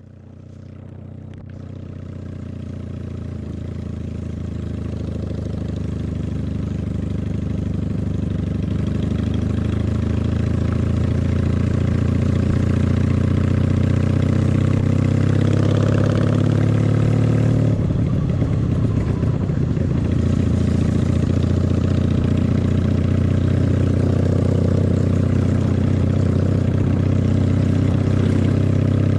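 Honda Magna VF750's V4 engine running on the road, growing louder over the first ten seconds and climbing in pitch as it accelerates. About eighteen seconds in the pitch breaks and drops, as at a gear change, then the engine runs steady.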